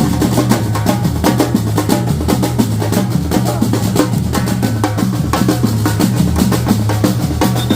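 Batucada samba percussion playing: dense, fast drumming with rapid snare-like strokes over a steady low bass-drum pulse.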